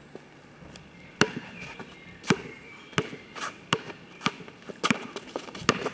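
Basketball dribbled on an asphalt court: about seven sharp bounces at an uneven pace, roughly one every second or a little faster, starting about a second in.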